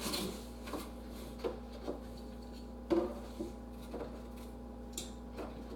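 Light, irregular knocks and clicks of eggs and an egg carton being handled on a kitchen counter, about nine small taps over a faint steady hum.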